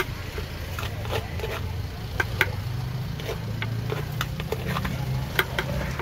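Metal spoon scraping horseshoe crab roe out of the shell, with scattered sharp clicks as it knocks against the shell, the loudest a pair about two seconds in and one near the end. A steady low rumble runs underneath.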